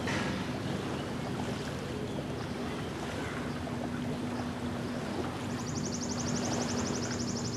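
Small lake waves lapping on a sandy shore, with wind buffeting the microphone and a distant motorboat engine humming steadily. A high, rapid trill joins in near the end.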